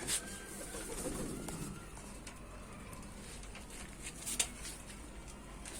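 Domestic pigeons cooing in a loft, with two short clicks, one at the very start and one a little past four seconds in.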